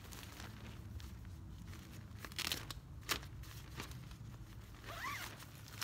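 Nylon tent rain fly rustling and crinkling as its door flap is rolled up, with a couple of short ripping rasps about two and a half and three seconds in from its Velcro tabs.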